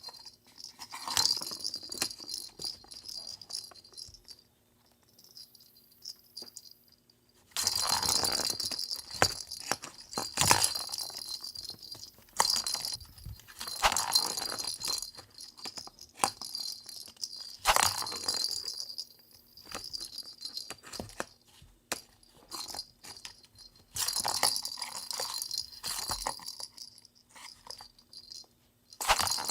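A small bell jingling and rattling in repeated bursts of a second or more, with quieter gaps between them.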